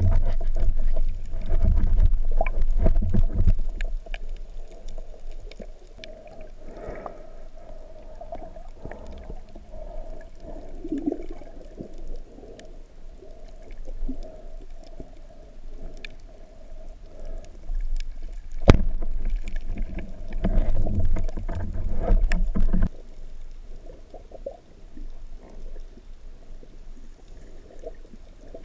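Underwater water noise picked up by a camera carried by a diver: a constant wash of moving water with low rumbling that swells strongly near the start and again about three quarters of the way through. A single sharp click comes a little past the middle.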